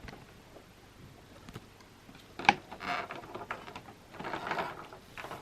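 Pokémon trading cards and their packaging being handled: a sharp tap about two and a half seconds in, followed by two short spells of rustling.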